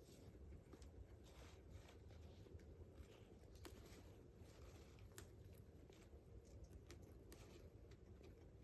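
Guinea pigs chewing and tugging at hay, heard as faint irregular rustling and crunching with a few sharper clicks, over a low steady hum.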